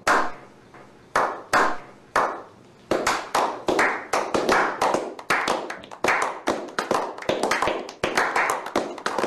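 A slow clap building into applause: a few single hand claps spaced about a second apart, then from about three seconds in several people clapping faster and together.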